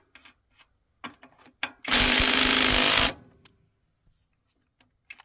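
Bauer brushless 3/8" cordless impact wrench running for just over a second on a tractor wheel's lug nut, its hammer mechanism rattling rapidly. A few light clicks come before it.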